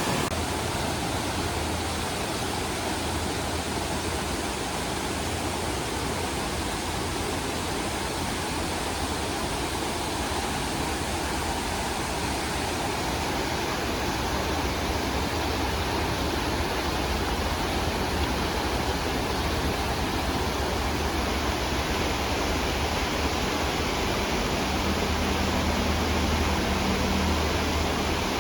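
Mountain stream running fast and pretty loud, swollen after heavy rain: a steady rush of water.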